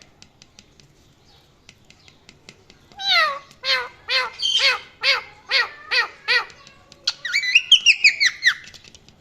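Pet parrot calling: a run of about eight short repeated calls, roughly two a second, starting about three seconds in, then a quicker string of chirps. Faint ticking clicks come before the calls.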